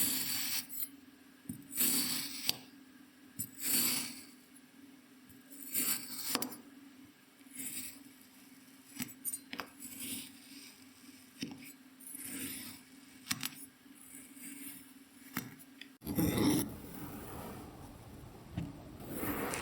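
Kinetic sand being cut and crushed: short gritty crunches every second or two, with sharp clicks between them. Near the end the crunching turns fuller and deeper.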